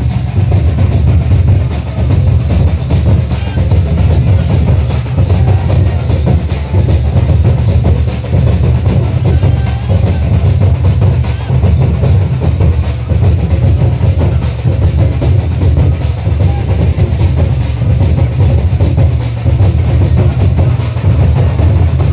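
Loud Nagpuri dance music driven by fast, even drumming over a heavy bass beat, running without a break.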